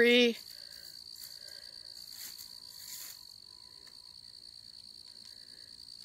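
Crickets trilling: a steady, unbroken high-pitched chirring with no pauses.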